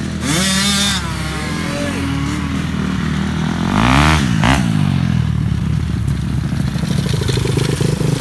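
Motocross motorcycle engine running, its revs rising and falling several times, with a louder rev about four seconds in.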